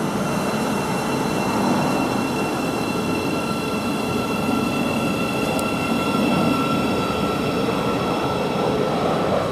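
Thameslink Class 700 electric multiple unit pulling out of the station: steady rumble of wheels on rail with a high, even electric whine held over it.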